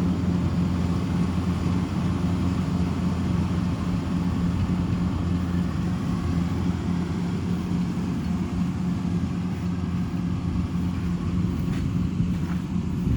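Kubota DC-105X rice combine harvester's diesel engine running steadily under load, with a constant low hum.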